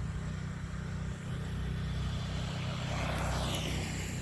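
RC rally car's electric motor whining as the car drives on icy snow crust, the whine swelling and bending in pitch about three seconds in, over a steady low hum.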